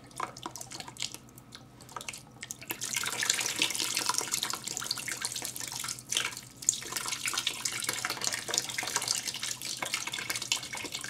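Water sloshing and swirling inside a lidded clear plastic cup as it is swirled to spin up a whirlpool. There are faint drips and clicks at first; the swishing starts about three seconds in and keeps going, with a short break near the middle.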